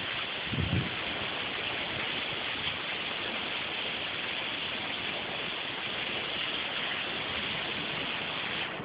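Heavy rain pouring down in a steady, dense hiss, with a brief low thump under a second in.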